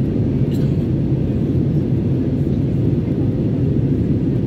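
Steady low cabin noise of an Airbus A320neo in its climb after takeoff: the engines at climb power and the rush of air over the fuselage, heard from a window seat.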